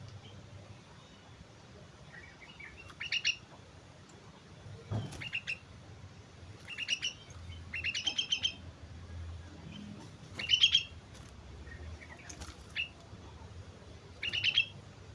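Sooty-headed bulbul (kutilang) singing short, rapid, bubbly phrases, about seven of them with pauses between, the loudest near the middle. A brief knock comes about five seconds in.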